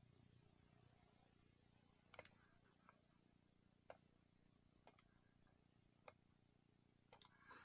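Five sharp, isolated clicks about a second apart over faint room hum: pointer clicks while drawing on a laptop screen.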